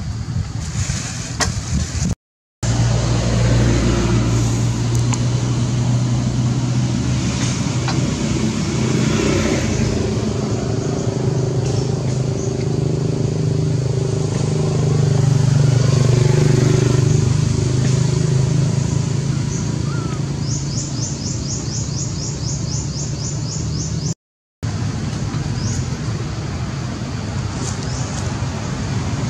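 A motor vehicle engine running steadily with a low hum, growing a little louder about halfway through. A high, rapid trill comes in near the end, and the sound drops out to silence briefly twice.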